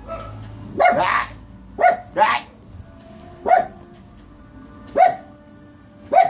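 A dog barking: about six short, sharp barks at uneven intervals.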